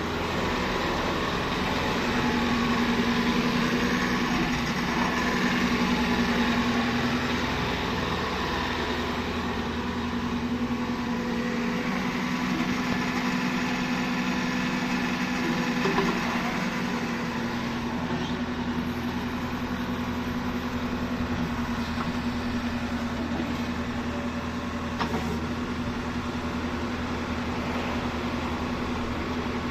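Kubota RX-301 mini excavator's diesel engine running steadily, a little louder between about two and eight seconds in, with one sharp knock around the middle.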